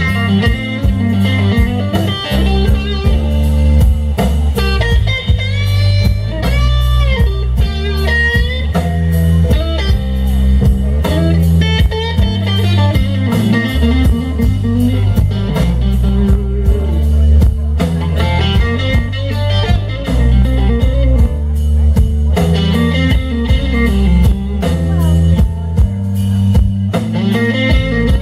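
Live blues band playing a slow instrumental passage: a lead electric guitar plays with string bends over bass guitar and drum kit.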